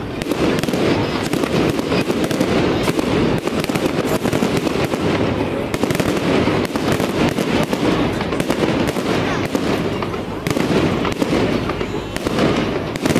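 Fireworks display: aerial shells bursting in a rapid, unbroken run of bangs and crackles over a steady background rumble.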